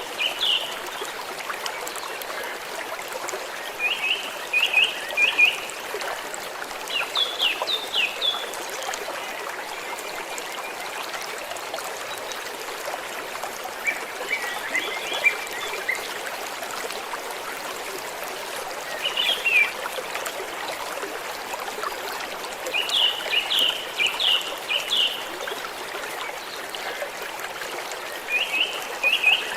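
Small stream running gently and steadily over rocks, with a bird giving short runs of quick high chirps every few seconds.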